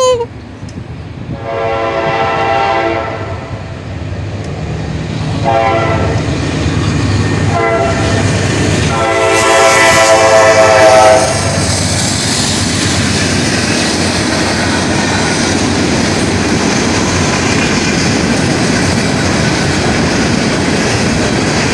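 Freight locomotive's air horn blowing for the grade crossing: a long blast, two short ones and a final long, loud one ending about 11 seconds in. Then comes the steady rumble and wheel clatter of the hopper cars rolling through the crossing.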